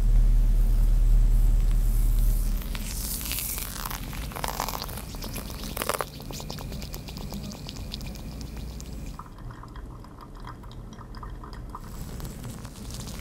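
Hot water poured in a thin stream from a gooseneck kettle onto coffee grounds in a Kono cone dripper, a soft trickle with fine dripping ticks. A low rumble, the loudest sound, runs through the first two and a half seconds and then drops away.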